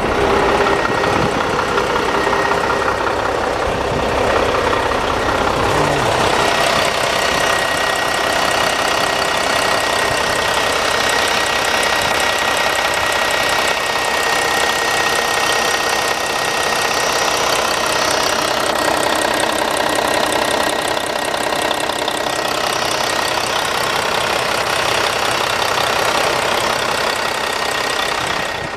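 Diesel engine of a 2008 Mack Pinnacle (CXU613) day-cab truck running steadily; the sound turns brighter, with less low rumble, about six seconds in.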